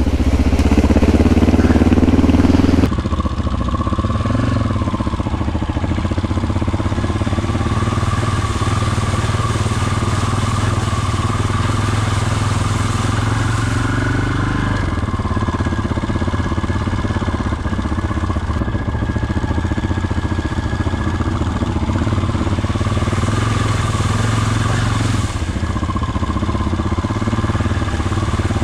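Dual-sport motorcycle engine running steadily under way on a dirt track. It is louder for the first three seconds, then drops suddenly to a steady, slightly lower level.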